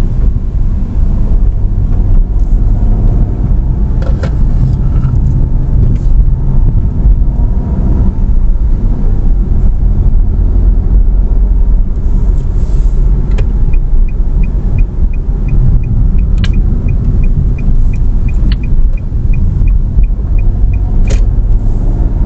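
Car driving, heard inside the cabin: a steady engine and road rumble. From a little past halfway, the turn-signal indicator ticks evenly for about eight seconds, roughly two or three ticks a second, with a few sharp clicks around it.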